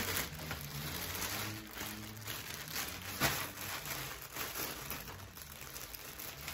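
Packaging crinkling and rustling in irregular bursts as a clothing parcel is struggled open by hand.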